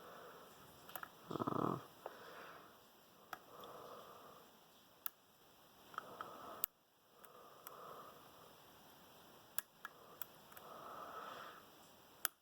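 Soft breathing close to the microphone, rising and falling every second or two, with scattered faint sharp clicks from a lock pick working the pins of a pin-tumbler lock.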